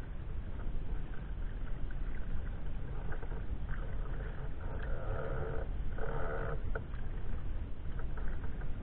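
Steady wind rumble on the microphone from a sea kayak on a lake, with two drawn-out animal calls about five and six seconds in.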